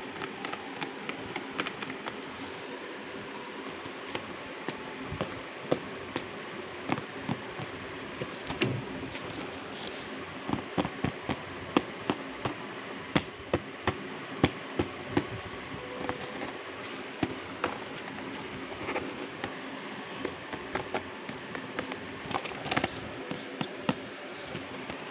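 Fingers tapping and handling a cardboard craft-kit box: many irregular light taps and clicks over a steady background hum.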